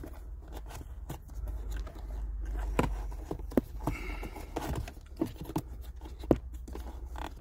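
Scattered clicks and knocks with some scraping from plastic parts of a car's cabin air filter housing being handled behind the dashboard.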